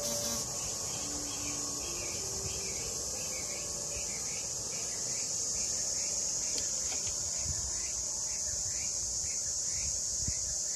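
Steady, high-pitched buzzing of insects, with a softer chirp repeating about twice a second.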